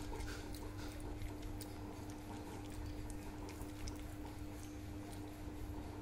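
A cat crunching dry kibble: quick, irregular small crunches, over a steady background hum.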